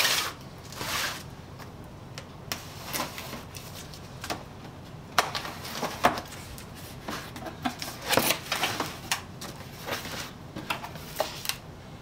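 Cardboard box being opened by hand: a blade slits the packing tape, then the cardboard flaps scrape and rustle as they are lifted and folded back, with scattered taps and clicks.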